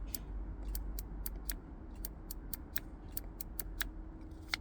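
A quick, uneven run of small sharp clicks, about three or four a second, over a faint steady low hum.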